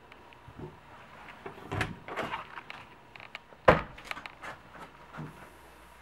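Interior door of a travel trailer being opened by its round metal knob: the knob and latch rattle and click about two seconds in, then there is one sharp knock a little past halfway, followed by a few lighter clicks and a soft bump near the end.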